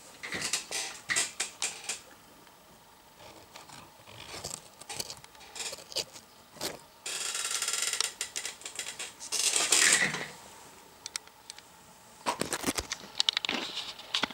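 Handling noise on a workbench: scattered clicks, knocks and scrapes, with a stretch of rustling about seven seconds in and another about ten seconds in.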